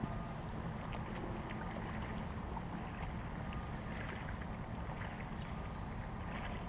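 Steady rushing of a shallow stream's running water, with low wind rumble on the microphone and a few faint clicks.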